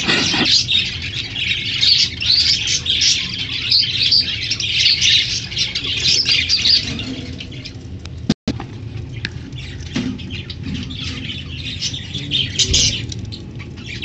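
Many budgerigars chirping and chattering, a dense run of high chirps that thins out after a brief break in the sound about eight seconds in.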